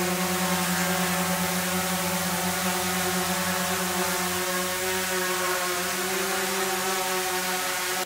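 Quadcopter drone's propellers whirring in a steady buzz as it lifts off and hovers.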